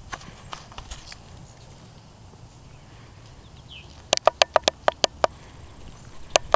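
A quick run of about nine sharp clicks or taps in about a second, starting about four seconds in, with one more click near the end. A faint short bird chirp comes just before the clicks.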